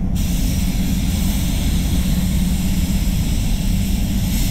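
Steady rushing air in a paint spray booth with a low hum, and the hiss of a gravity-feed spray gun's air cap as paint is sprayed onto a car panel.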